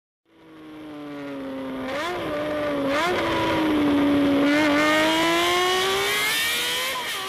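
Engine running at high revs, fading in, with two quick throttle blips about two and three seconds in, then a steady held note that climbs slightly before fading away.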